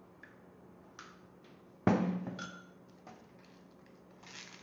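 Metal ladle clicking against a glass baking dish while sauce is spread, with one sharp, loud knock about two seconds in. Near the end there is a brief papery rustle as thin sheets of pastel dough are peeled apart.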